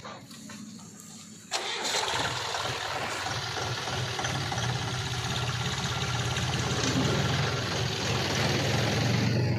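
Diesel engine of heavy farm or earthmoving machinery running loud and steady, with a low hum under a broad mechanical noise. It comes in abruptly about a second and a half in and eases off just before the end.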